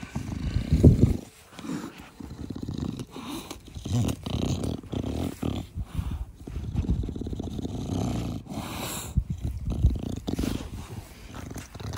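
English bulldog snorting as it breathes close up, in repeated rough breaths about once a second, the loudest about a second in. This is the noisy breathing typical of a short-nosed (brachycephalic) breed.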